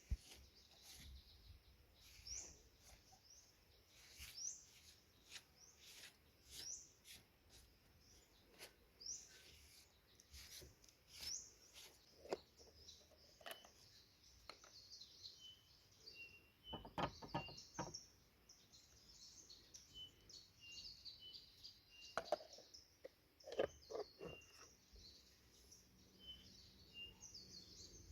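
Forest birds singing softly: a short rising chirp repeated about every two seconds, giving way to busier high twittering mixed with short whistled notes. A few soft clicks and knocks come in the middle and again near the end.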